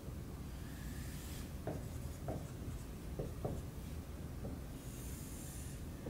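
Dry-erase marker drawing and writing on a whiteboard: a run of short squeaky strokes, then a longer drawn stroke about five seconds in.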